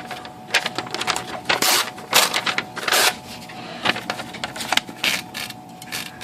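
Brother electric typewriter typing a test line after a shift-stop adjustment: irregular sharp key strikes of the type against the platen, a few of them heavier, over the faint steady hum of the running motor.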